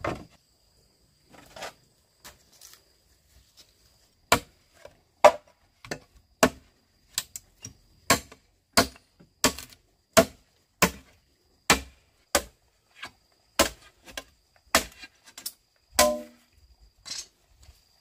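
A hand tool striking something solid over and over in a steady rhythm of sharp blows, a little under two a second, starting about four seconds in and stopping shortly before the end.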